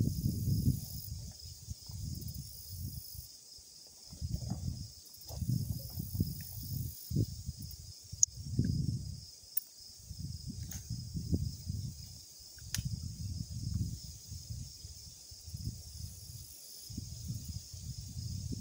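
Gusty wind buffeting the microphone in uneven rushes, over a steady high chirring of insects, with a few faint ticks near the middle.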